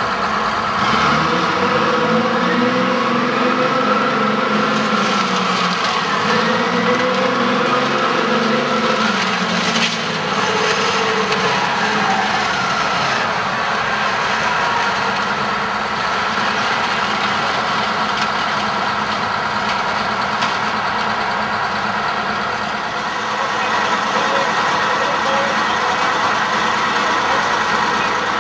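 The LARC LX amphibious vehicle's engines running under load, rising and falling in pitch over the first ten seconds as it rolls over an NSU 1000 coupe, with a sharp crack about ten seconds in, then settling to a steady running note.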